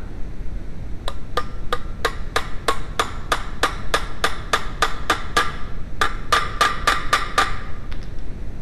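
Hammer tapping a drift to drive a wheel bearing race into the hub, sharp metal-on-metal strikes with a slight ring: about fifteen even taps at roughly three a second, a short pause, then six more.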